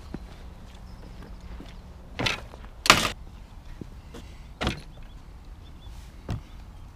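The metal gate of a chain-link court fence clattering shut: two loud rattling clanks in quick succession, the second the loudest. A duller knock follows as a sports bag is set down on a wooden bench, then a lighter knock near the end.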